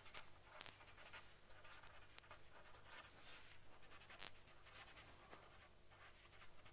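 Faint scratching of a marker pen writing words by hand, with a few light ticks as the tip meets the surface.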